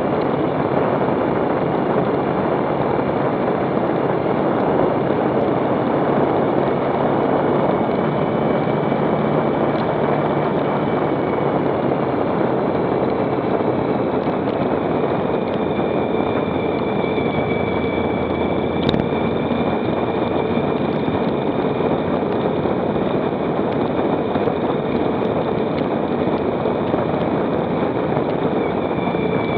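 Motorcycle on the move at a steady pace: a dense rush of wind noise over the engine's drone, with a faint high whine that drifts slowly in pitch. A single sharp click comes about two thirds of the way through.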